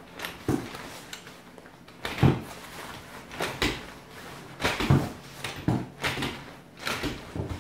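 Folding portable cot frame being pulled up by its top rails: about six irregular knocks and rattles of the rails and their joints as they are worked toward the locked position.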